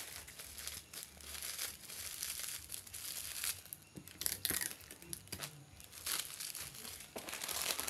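A small piece of plastic bubble wrap crinkling and crackling as it is folded and wrapped by hand, with irregular sharper crackles.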